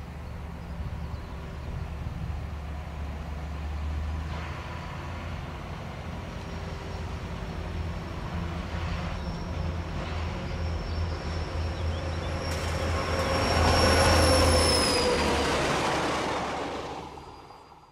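Convoy of vintage SNCF locomotives, the diesels BB 67615 and CC 68081 with the electric BB 25236, approaching and passing on a main line. The diesel rumble and the wheels on the rails grow louder to a peak about 14 s in, and a high ringing tone drops in pitch as the locomotives go by. The sound then fades and cuts off sharply near the end.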